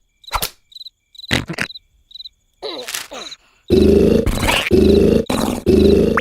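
Cartoon cricket chirping in a hush, with a few short noises. Then, a little past halfway, a loud run of rough, rasping vocal bursts, about two a second, an exaggerated cartoon snore.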